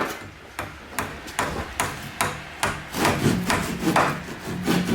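Hand saw cutting through a wooden board, in regular strokes about two to three a second that get faster and denser near the end.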